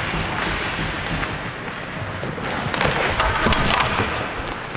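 Ice hockey play on the rink: skate blades scraping the ice, with a quick run of sharp clacks from sticks and puck hitting about three seconds in.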